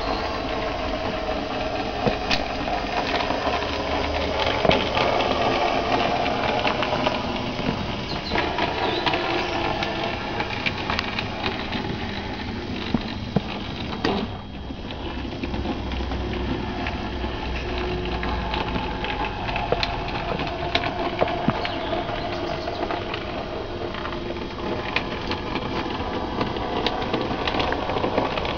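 OO gauge model steam tank locomotive, an SE&CR P-Class resin body on a ready-to-run chassis, running along the layout: its small electric motor whirring, with frequent light clicks from the wheels on the rail joints and pointwork. The sound drops briefly about halfway through.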